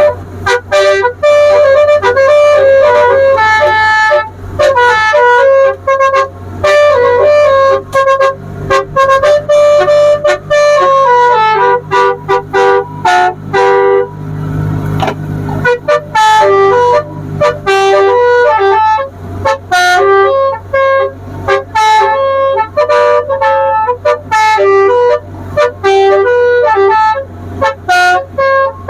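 Tourist boat's 'Basuri' telolet musical horn playing a reedy, stepping tune of short notes with frequent breaks, over a low steady hum.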